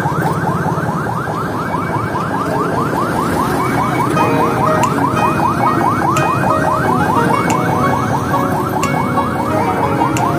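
Electronic alarm warbling: a rapid rising chirp repeated about six times a second without a break, over a steady traffic rumble.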